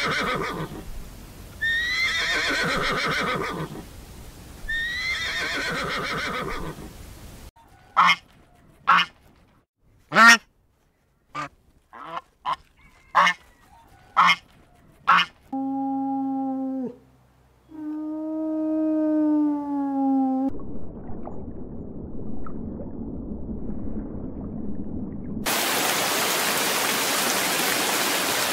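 A run of different animal calls: two pitched calls, then a quick series of short separate calls, then two long drawn-out calls, followed by a loud steady hiss near the end.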